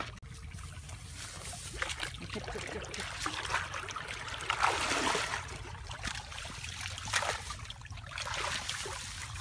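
Water splashing and trickling in irregular swells, loudest about halfway through, over a steady low rumble.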